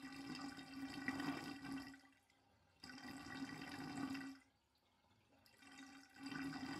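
Hand-operated oil-sampling vacuum pump being stroked three times, each stroke a faint pitched hiss of about a second and a half, drawing warm engine oil up a tube from the dipstick hole into the sample bottle.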